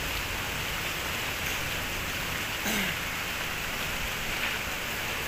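Steady hiss of light rain falling, with a brief falling voice sound about two and a half seconds in.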